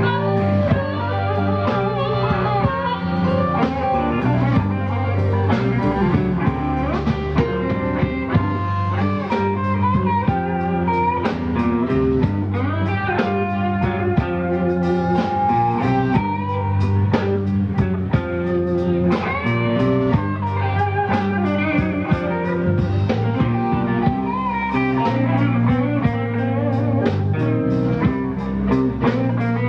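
Live blues band playing: electric guitar over drums and a low bass line, with wavering, bent guitar notes.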